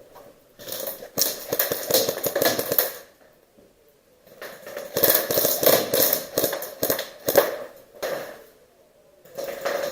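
Airsoft guns firing rapid volleys of shots in two long bursts, the first about a second in and the second about halfway through, with a short lull between.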